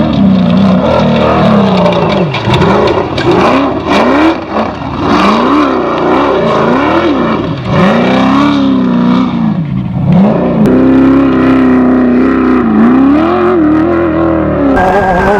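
Off-road race buggy engine revving up and down over and over, its pitch repeatedly climbing and dropping, then holding steadier for a couple of seconds after about ten seconds in.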